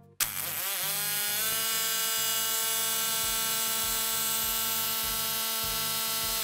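Electric drill motor starting up, its whine rising in pitch for about a second and a half, then running steadily at full speed until it cuts off at the end. Background music with a low beat plays underneath.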